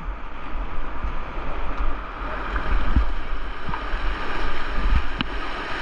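The river Derwent running high and fast, an even rushing of water, with wind buffeting the microphone in low rumbles and a few faint knocks.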